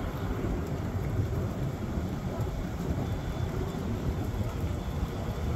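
Steady low rumbling outdoor background noise with no distinct events.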